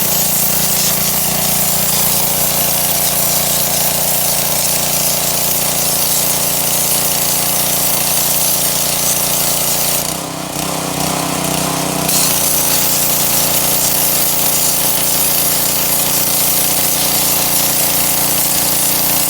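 Pressure washer running steadily, its motor and pump humming under the hiss of a high-pressure water spray on brick. About ten seconds in the sound dips and changes for a couple of seconds, then the steady spray returns.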